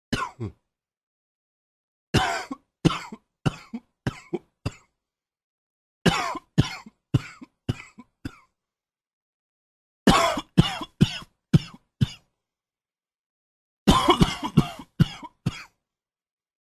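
A man coughing: two short coughs at the start, then four fits of about five or six quick coughs each, with silent pauses between the fits.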